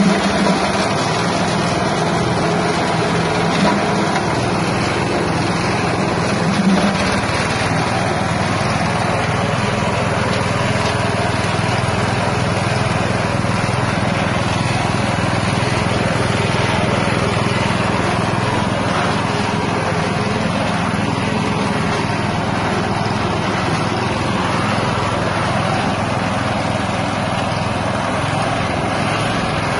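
Small 6.5 hp engine driving a spice-grinding mill, running loud and steady.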